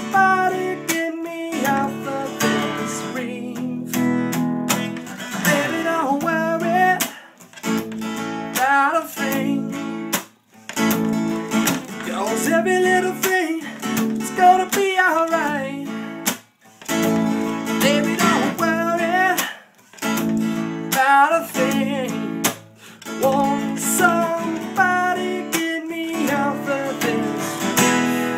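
Acoustic guitar strumming chords in a steady rhythm, broken by a few brief stops.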